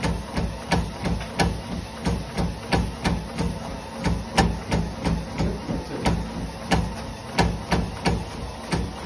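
Treadmill deck thudding under running footfalls, about three a second, with a sharp click on roughly every other step: the deck noise that shows up while running.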